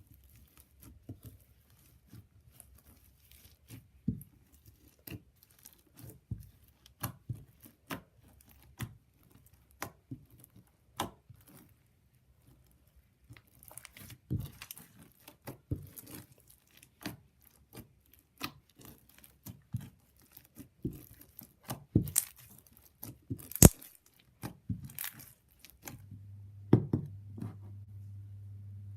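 Slime being squished, stretched and poked by hand, giving irregular sticky clicks, pops and crackles. A low steady hum comes in near the end.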